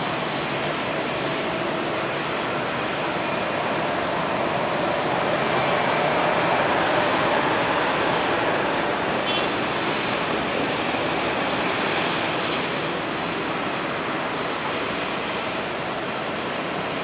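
Airbus A380-800's four jet engines on final approach for landing: a steady jet noise that swells to its loudest about six to seven seconds in, then eases slightly.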